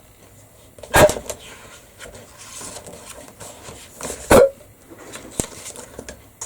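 Two loud, sharp hiccups voiced by a person, about three seconds apart.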